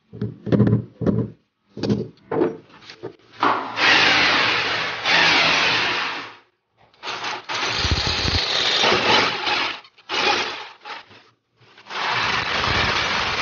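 A hammer tapping a nail a dozen or so times at the marked spot on the wall, chipping a starting notch so the drill bit won't slip. Then an electric drill boring into the wall for the wall plugs of the cistern bracket, in three long runs with short bursts between.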